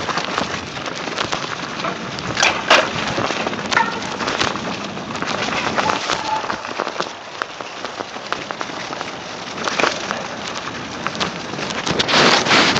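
Mountain bike rolling fast downhill on a dirt and grass trail: a continuous crackle of tyres over dirt, twigs and grass, with the bike rattling. There are sharper knocks about two and a half seconds in, and a louder stretch near the end.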